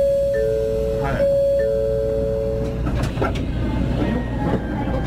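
Two-note electronic chime, a higher tone joined by a lower one, sounding twice over about three seconds. It plays over the steady low running noise of a Shinkansen bullet train pulling into a station.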